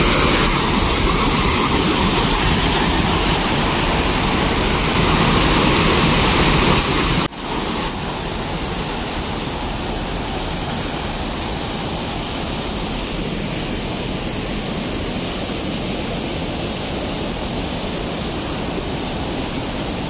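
Rushing white water of a mountain stream cascading over boulders below a waterfall, a steady, loud noise that drops a little in level about seven seconds in.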